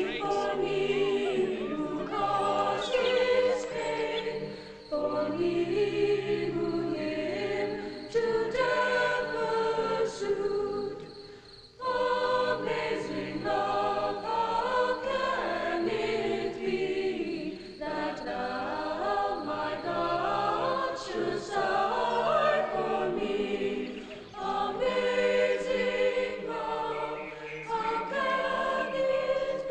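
A choir singing a hymn in long, slow phrases with short breaks between them, with little or no accompaniment.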